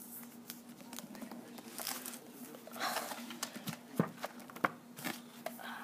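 Handling of a hardcover book: its pages being turned and flipped, with paper rustling and a string of light clicks and taps from the cover and fingers. A faint steady hum runs underneath.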